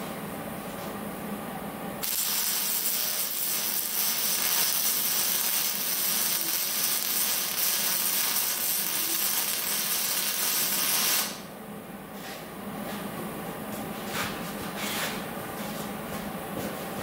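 Electric arc welding on a steel pipe joint: a steady hiss that starts about two seconds in, runs for about nine seconds and cuts off abruptly when the arc stops. A quieter steady hum and a few sharp clicks are heard before and after the weld.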